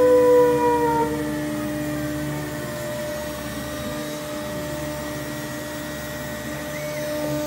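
Multicam CNC router's 5 hp Colombo spindle running, a steady machine whine with several held tones over a hiss. A louder tone slides slightly lower and fades out about a second in.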